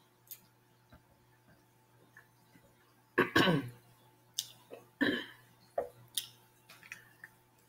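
Mouth and throat noises while eating, mostly quiet: two short pitched throat sounds about three and five seconds in, with a few light clicks as a plastic utensil picks meat from a mussel shell.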